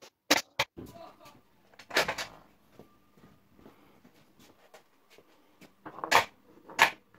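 Handling noise: a few sharp clicks and knocks with rustling between, two of the loudest near the end.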